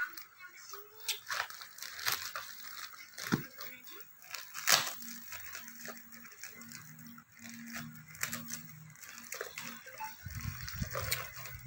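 Clear plastic packaging bag crinkling and rustling as it is handled and pulled open, with irregular sharp crackles, a few of them louder.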